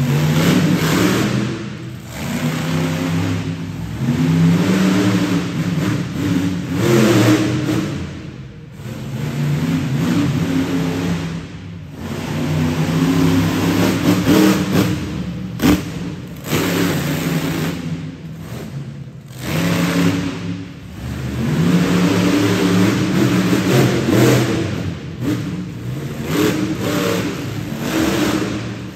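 Monster truck engine revving hard in repeated surges, the pitch climbing and falling every few seconds as the throttle is blipped and released. A single sharp bang cuts through about halfway through.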